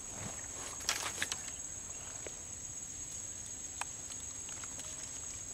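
Insects calling in a steady high-pitched chorus, with a few short clicks and rustles about a second in and a single click near four seconds.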